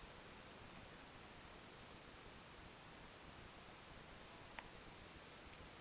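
Near silence: faint outdoor ambience with a few brief, high chirps scattered through, and one small click about three-quarters of the way in.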